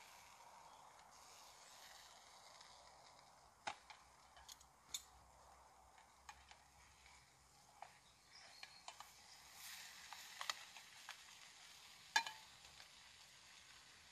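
Beef steak sizzling faintly in a small frying pan over a log-stove fire, with a handful of sharp clicks of a metal utensil against the pan, the loudest near the end.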